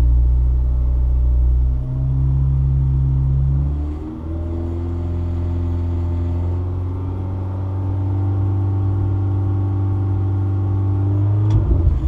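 Mini Cooper S R53's supercharged four-cylinder engine, heard from inside the cabin, held at about 3,000 rpm. Its pitch shifts a couple of times early on, creeps up slowly, then drops back near the end.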